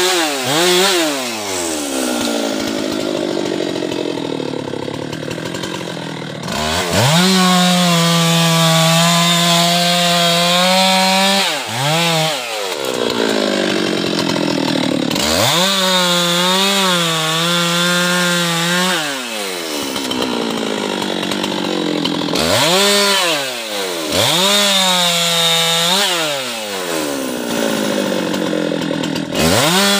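Husqvarna two-stroke chainsaw cutting soft guava wood. It revs up and holds at full throttle through a cut for three to five seconds, then drops back lower between cuts. This happens three times, and a fourth cut starts near the end.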